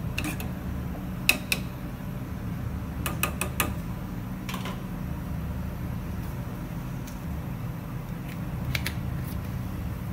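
Steady low rumble of a gas burner under a simmering saucepan of broth. Through the first half, a spoon gives a few sharp taps against the metal pan; a couple more clicks come near the end.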